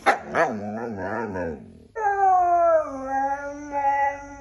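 Siberian husky 'talking': a quick run of wavering, up-and-down vocal sounds, then, after a short break about two seconds in, one long drawn-out call whose pitch slowly falls.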